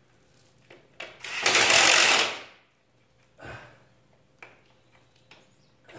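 Cordless impact driver hammering a bolt on a radiator fan assembly in one burst of about a second and a half, starting about a second in, with a brief, quieter blip near the middle.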